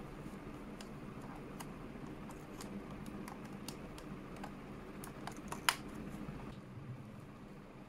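Small screwdriver prying at the plastic clip tabs of a Nissan 180SX digital climate control unit's housing: a run of light, irregular plastic clicks and ticks, with one sharper snap about three-quarters of the way through as a tab pops free.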